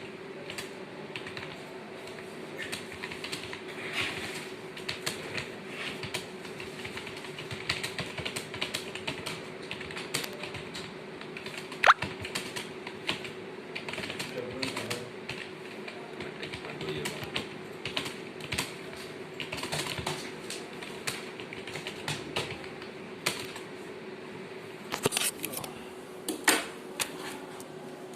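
Typing on a computer keyboard: a steady stream of irregular key clicks over a constant low hum, with one sharper, louder click about twelve seconds in.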